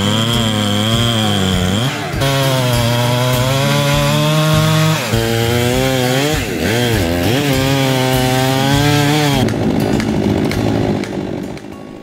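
Two-stroke chainsaw running at full throttle while cutting the back cut into a large maple trunk. Its pitch dips under load and recovers several times, and the saw stops about three-quarters of the way through.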